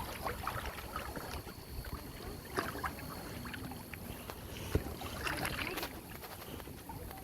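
River water lapping and splashing around inner tubes drifting downstream, with scattered small splashes and knocks.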